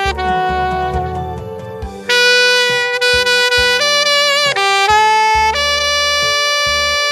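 Instrumental melody: a solo wind instrument plays long held notes with slight vibrato over a backing track with bass.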